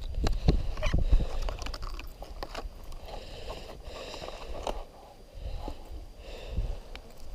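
Spinning rod and reel in use as a lure is cast and retrieved: sharp clicks and knocks of tackle handling in the first second or so, then a softer, uneven whirring rustle of the reel being wound.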